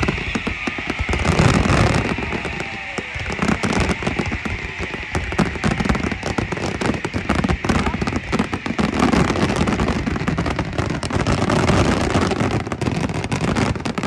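Aerial fireworks shells bursting in rapid, overlapping volleys, a continuous run of bangs and crackling with no pause.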